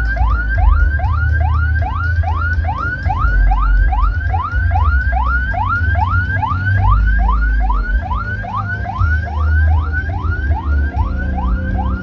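Loud sound-horeg parade sound system playing heavy, pulsing bass under a rapidly repeating rising siren-like whoop, about three a second.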